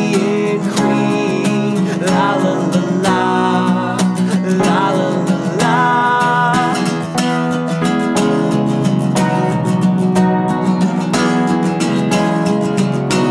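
Live indie-folk band music: an acoustic guitar strummed under a keyboard, with a man singing loudly over roughly the first half.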